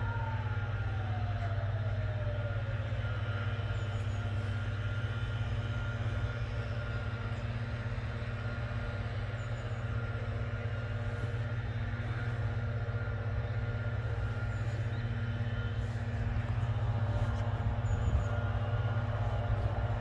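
Steady low rumble of city traffic, with a faint tone sliding down in pitch over the first few seconds.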